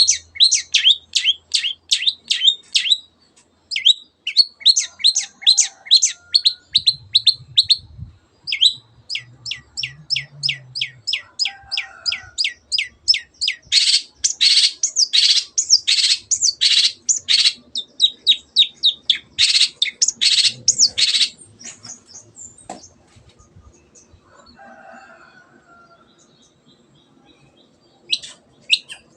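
Long-tailed shrike singing a rapid run of short, high, sharp notes, about four or five a second. The notes grow louder and harsher through the middle, then break off about two-thirds of the way through, with a few notes returning near the end.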